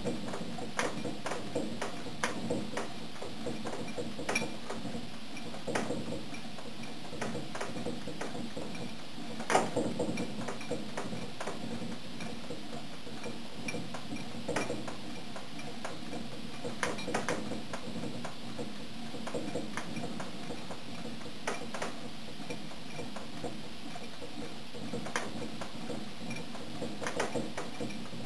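Stirling machine driven as a refrigerator, running with a steady mechanical hum and irregular sharp ticks and clicks from its mechanism, one louder click about ten seconds in.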